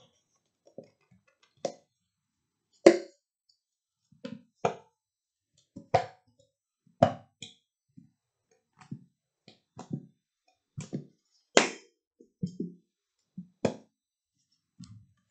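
Thick lotion squeezed from a plastic bottle into a glass bowl: a string of short squirts and plops at irregular intervals, with brief silences between them.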